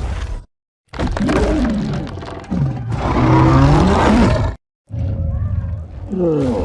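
Film sound effects of Kong, the giant ape: separate roar and grunt clips cut apart by two brief silences. The longest is a deep roar that rises and then falls in pitch and is loudest about three to four seconds in. It is followed by a shorter call that drops in pitch near the end.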